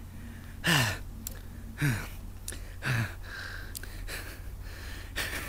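A man's voice: three short breathy exhales about a second apart, each falling in pitch, followed by quieter breathing.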